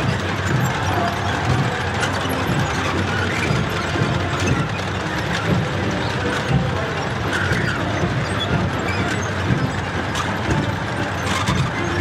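Column of T-34-85 tanks driving past: a steady clanking, rattling clatter of steel tracks, with engine noise underneath.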